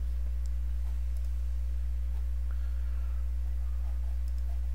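Steady low electrical hum with fainter higher overtones, mains hum picked up in the recording's microphone chain.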